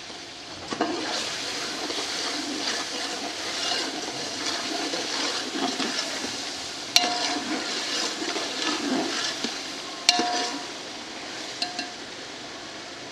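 A steel ladle stirs chunks of raw potato through thick, frying tomato-onion masala in an aluminium pot, making a continuous wet stirring and sizzling sound. The ladle knocks against the pot with a short metallic ring twice, about seven and ten seconds in, and the stirring stops near the end.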